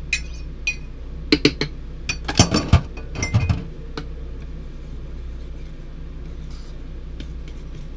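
A utensil clinking and scraping against a ceramic mixing bowl while cornbread batter is stirred. There are clusters of sharp clinks in the first half, with a steady low hum underneath. The clinks stop about halfway through.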